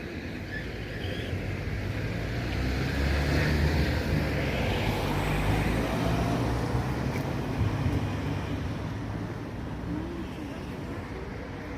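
A motor vehicle passing by: a low engine hum with rushing noise that swells to its loudest a few seconds in, then fades.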